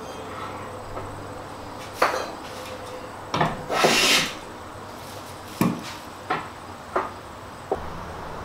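Hand plane working the edge of an oak board: one short hissing shaving stroke just before the middle, among half a dozen sharp wooden knocks and clicks.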